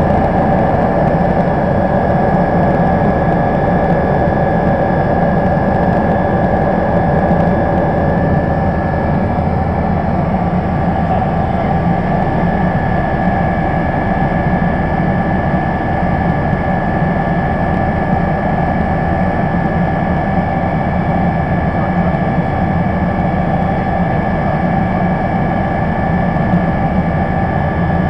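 MBB Bo 105 helicopter in flight, heard from inside the cabin: a steady rumble of the rotor and airframe with the high whine of its twin turboshaft engines running over it.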